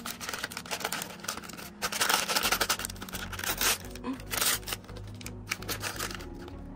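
Printed plastic packet crinkling and tearing as hands pull it open. A dense run of crackles, busiest in the first half, thinning out toward the end.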